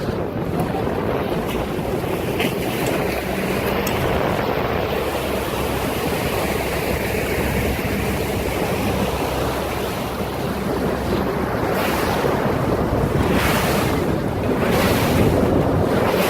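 Strong wind buffeting the microphone over the rush of wind-driven waves, with a few louder gusts in the last few seconds.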